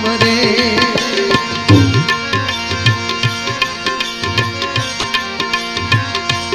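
Instrumental interlude of a Gujarati devotional bhajan: a hand drum keeps a steady rhythm under a plucked-string and keyboard melody, after the last sung note fades in the first moment.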